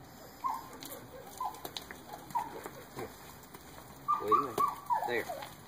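Border Collie whining and yelping in short, high calls about once a second, then in a quick cluster about four seconds in.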